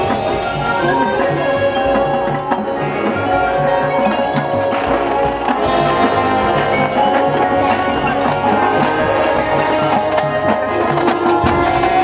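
Marching band playing its field show: sustained wind chords over a regular low drum beat.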